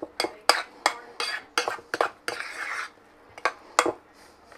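Metal spoon scraping and knocking against a mixing bowl while stirring thick mashed potato filling, in quick strokes about two to three a second with one longer scrape past the middle. After a short lull come two last strokes.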